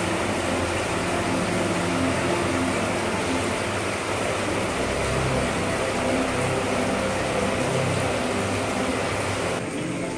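Heavy rain pouring down as a steady, dense hiss. Near the end the hiss turns duller.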